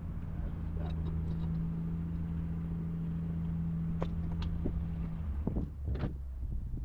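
A steady low motor hum that stops about five seconds in, with a few sharp metallic clicks toward the end.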